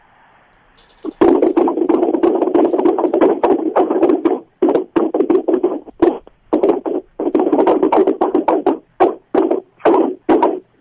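Rapid, dense knocking and banging heard down a phone line, starting about a second in and coming in runs broken by short pauses. It sounds like furniture being moved or something being struck, which the host takes for a poltergeist.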